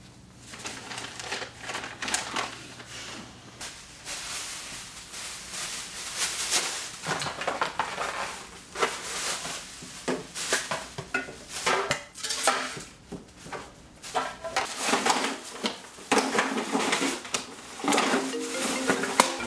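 Empty aluminium drink cans and other table clutter clinking and clattering as they are picked up and tossed aside, in irregular knocks.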